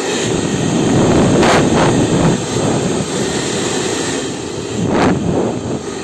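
Politun handheld hair dryer blowing steadily, with a brief dip and surge in the air noise near the end as its speed setting is switched.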